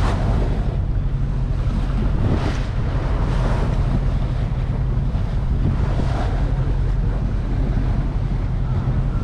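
Wind buffeting the microphone over the steady low drone of a small motorboat under way, with water rushing past the hull; the water noise swells twice, about two and a half and six seconds in.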